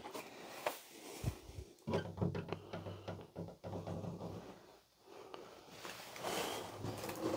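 A glass-paned wooden door being opened by its lever handle, with a few short clicks and knocks from the latch and door, then quieter shuffling.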